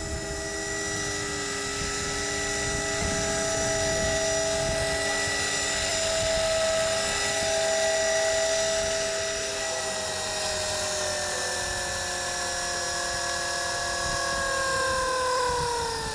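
Electric RC helicopter (T-Rex 450 with a Medusa brushless motor) running with a steady, high motor-and-gear whine and rotor hum. About two-thirds of the way through, all its tones start falling steadily in pitch as the throttle is cut and the rotor spins down after landing.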